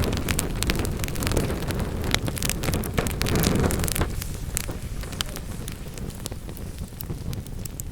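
Wood fire burning in a fireplace, crackling with frequent sharp pops and snaps over a low steady rush. The rush grows quieter after about four seconds while the crackles go on.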